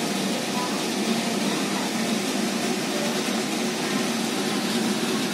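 Steady hum and hiss of a running machine, even and unchanging, with no distinct knocks or clicks.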